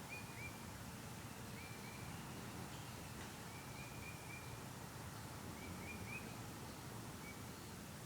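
Faint outdoor ambience with a small bird chirping in short runs of two to four quick notes, repeated every second or two.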